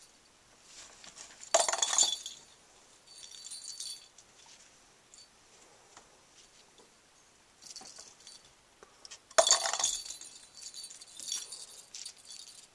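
A bell inside a plastic lattice cat-toy ball jingles and rattles as the ball is shaken and pushed about. There are two louder jangles, one near the start and one about two thirds through, and fainter rattles between them.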